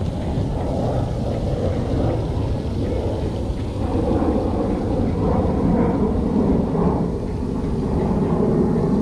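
Wind buffeting a GoPro's microphone: a steady low rumble.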